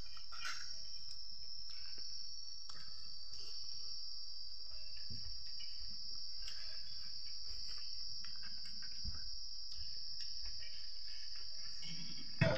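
Steady high-pitched trilling of crickets without a break, with faint clicks and smacks of eating by hand from a metal bowl, and a brief thump near the end.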